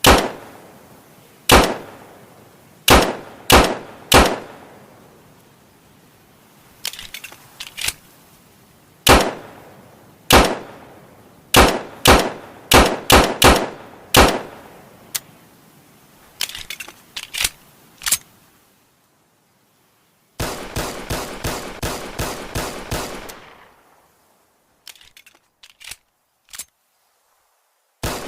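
Colt M1911A1 .45 ACP pistol firing: sharp shots with echoing tails, fired singly and in quick strings, with a few quieter clicks between. Past the middle comes a fast run of about a dozen shots in three seconds.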